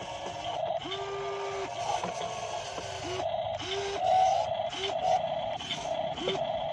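Small electric gear motors of an RC model Kobelco SK200 excavator whirring in short spells, starting and stopping over and over as the upper body swings and the boom and arm are raised. A higher motor whine rises and holds briefly each time it starts.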